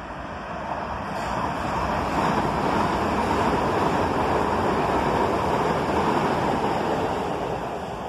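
Southern class 377 electric multiple unit passing through the station on the far line. The rumble and rush of its wheels on the rails builds about a second in, holds for several seconds and fades near the end.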